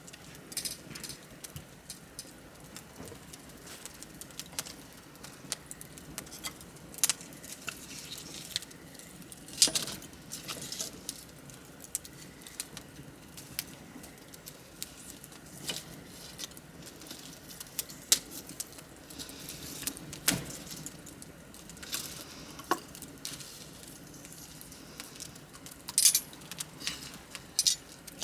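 Wood campfire crackling: irregular sharp pops and snaps over a soft steady hiss of burning wood, with a few louder snaps scattered through.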